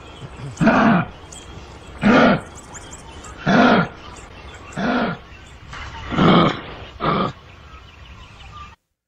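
Recorded growling calls of an angry kangaroo, played back: a short growl about every second and a half, six in all, until the recording cuts off near the end.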